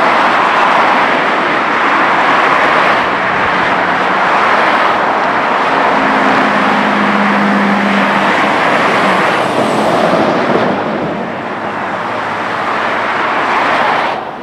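Freeway traffic passing close by: a loud, steady rush of tyres and engines that swells and eases as vehicles go by, with one vehicle's low engine drone standing out midway. It dips about two-thirds of the way through.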